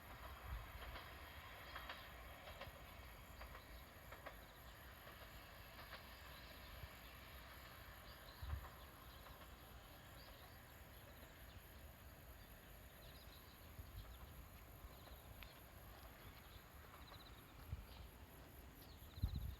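Near silence: faint outdoor ambience with a steady, high insect trill and a few soft knocks.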